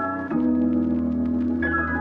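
Background music: sustained organ-like keyboard chords changing about every second.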